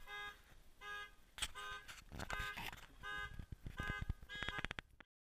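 A faint repeating two-part electronic tone, one pulse about every three-quarters of a second, with sharp clicks between the pulses; it cuts off suddenly just before the end.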